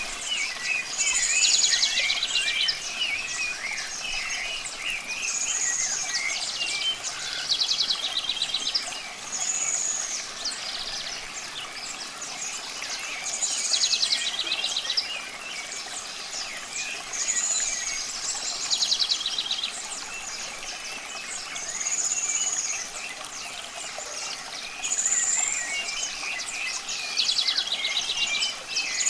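Wild birds singing: one bird repeats a short phrase every few seconds, a high clear note followed by a fast trill, while others chirp and twitter more quietly. Underneath runs a steady hiss of running water.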